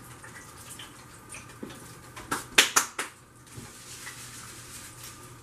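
A quick cluster of four or five light clicks and taps about two and a half seconds in, as fried chicken wings are set down on a stainless steel wire draining rack. Under them is a faint steady kitchen background.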